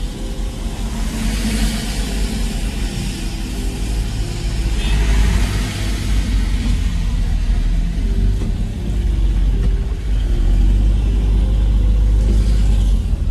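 Car driving, heard from inside the cabin: a steady low rumble of engine and road, with swells of hiss about a second in, around five seconds in and near the end.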